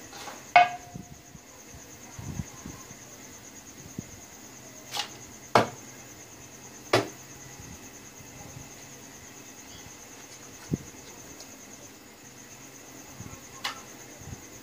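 A loudspeaker with a heavy magnet being swept over the glass screen of a CRT television, tapping and knocking against the glass in a few sharp clicks. The loudest knocks come about half a second in and just past the middle. The magnet is used to push out the rainbow colour blotches on the tube. A steady high-pitched whine runs underneath.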